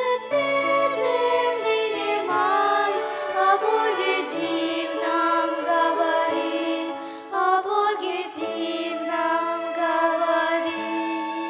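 Vocal ensemble singing a church song with violin accompaniment.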